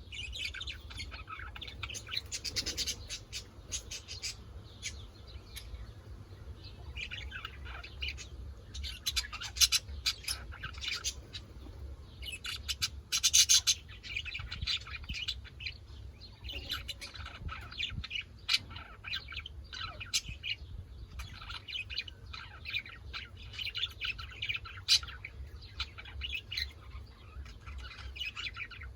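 Parrots chirping in many short, high calls, with a louder burst of calls about thirteen seconds in, over a steady low hum.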